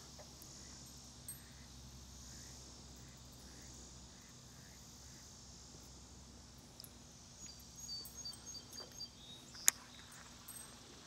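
Steady high-pitched insect chorus. About seven and a half seconds in comes a quick run of short high chirps, and near the end a single sharp click.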